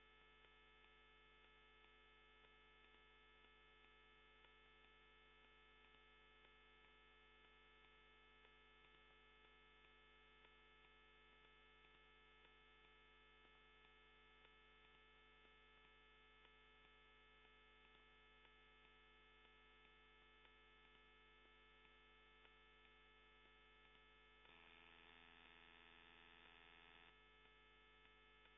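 Near silence: a faint, steady electrical mains hum with no match sound, briefly a little louder for about two and a half seconds near the end.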